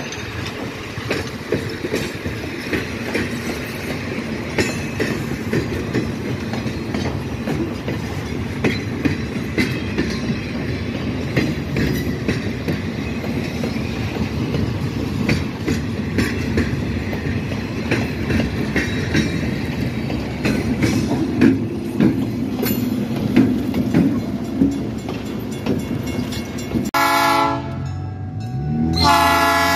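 Train cars rolling past, with steady rumbling and rapid wheel clicks over the rail joints. About 27 seconds in, this gives way to the multi-note chime horn of an EMD F7 diesel locomotive blowing, which becomes the loudest sound.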